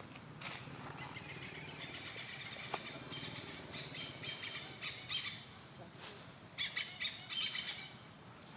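Birds chirping and twittering in repeated high trills, with a louder burst of chirps near the end.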